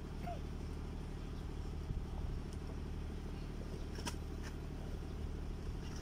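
A steady low mechanical hum, with a few faint knocks from potatoes being handled in crates.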